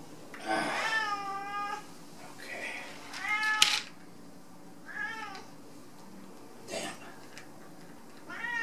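Domestic cat meowing again and again, about four separate meows a couple of seconds apart, the longest one about half a second in. A sharp tap sounds about three and a half seconds in.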